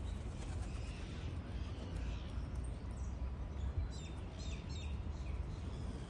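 Birds chirping in short, scattered calls, with a cluster of them about four seconds in, over a steady low rumble.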